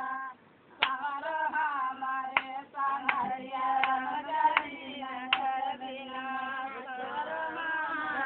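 Women singing a song with hand claps keeping time, a sharp clap about every three-quarters of a second through the first half or so.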